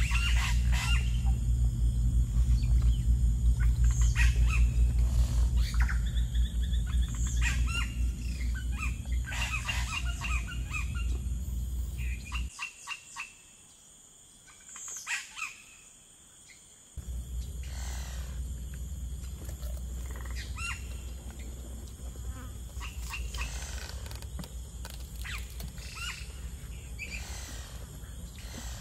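Outdoor ambience of birds chirping and insects, over a steady low rumble that drops out for several seconds about halfway through. Scattered short crunches of raw cucumber and fresh greens being bitten and chewed.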